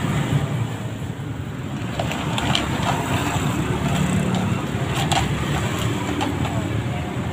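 Steady rumble of road traffic, with a few sharp crackles of thin plastic as disposable cups are pulled from a plastic bag.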